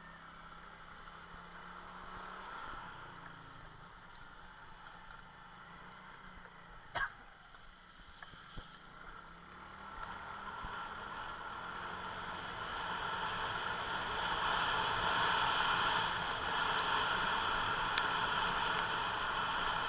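Motor scooter running while being ridden, a steady hum with rushing noise that grows louder about halfway through and then holds. A single sharp click about a third of the way in.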